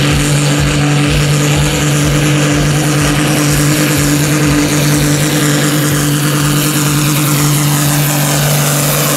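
Diesel engine of a New Holland pulling tractor running at a steady high pitch under full load as it drags the weight sled down the track.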